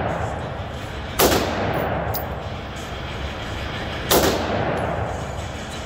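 Two single shots from an AR-style rifle, about three seconds apart, each a sharp crack with a short echo off the walls of an indoor range.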